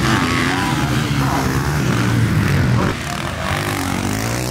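Motocross dirt bike engine revving hard, its note repeatedly rising and falling as the rider opens and shuts the throttle through the turns. It drops a little in level about three seconds in.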